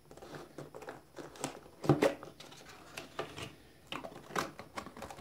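Hands handling a cardboard box and a plastic sleeve: irregular rustling, crinkling and light knocks of packaging, the loudest about two seconds in and again past four seconds.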